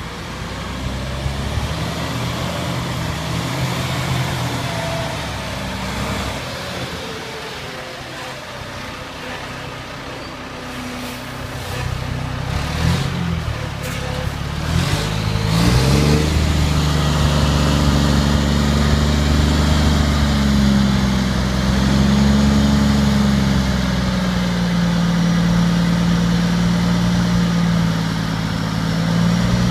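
Cummins diesel engine of a Terex TR35 rigid rock truck running as the truck moves off. About halfway through it revs up in a few rising sweeps, then holds at steady raised revs while the hydraulic hoist tips the dump body up.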